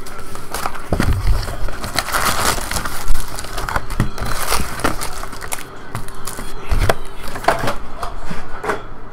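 Cardboard hobby box of foil trading-card packs being opened, the packs pulled out and stacked on the table: crinkling of foil wrappers with a run of light knocks and taps, over a faint steady hum.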